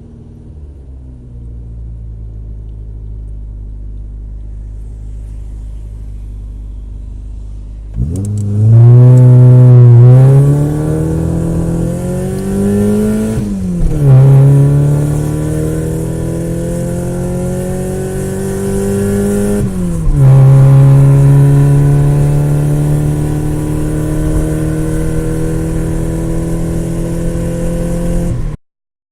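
Car engine idling steadily, then accelerating hard: the engine note climbs, drops back at two gear changes and climbs again, then cuts off abruptly near the end.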